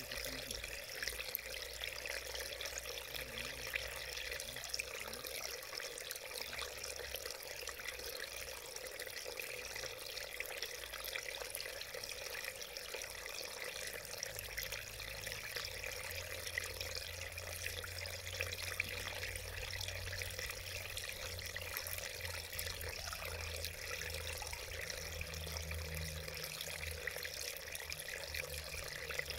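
Small mountain stream running over stones in a shallow channel: a steady babble of flowing water.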